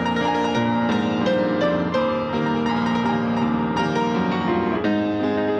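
Piano music, with held, overlapping notes changing at an unhurried pace.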